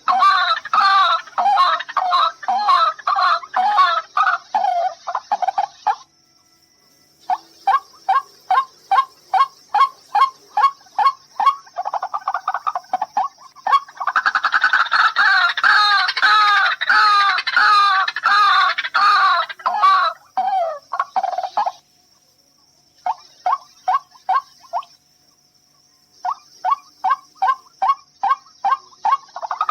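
White-breasted waterhen (ruak-ruak) calling: bouts of loud, repeated call notes, some in fast dense runs and some in slower, evenly spaced series, with abrupt breaks of a second or so between bouts.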